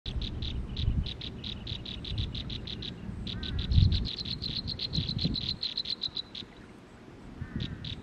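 An animal calling in a fast, even trill of short clicking pulses, about eight a second, which breaks off briefly about three seconds in, stops a little after six seconds and starts again near the end. A couple of short falling chirps come in with it, over a low rumble that is loudest a little before four seconds.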